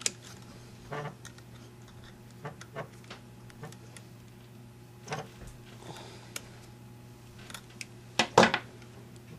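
Needle-nose pliers clicking against a small metal plug prong and the plastic housing as the prong is squeezed onto its wire: scattered light clicks and taps, loudest in a short cluster near the end.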